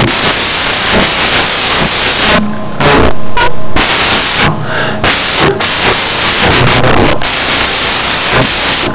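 Loud, harsh static hiss filling the whole sound, broken by a few short gaps, with no speech audible through it.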